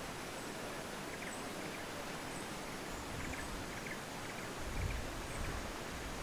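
Outdoor forest ambience: a steady background hiss with faint, scattered bird chirps, and wind buffeting the microphone about two-thirds of the way through.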